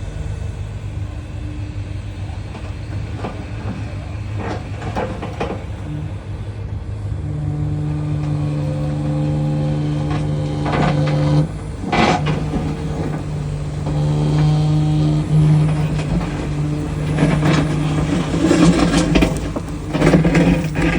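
Excavator's diesel engine running steadily and getting louder about a third of the way in, with clanks and knocks from the machine's working parts around the middle, more frequent near the end.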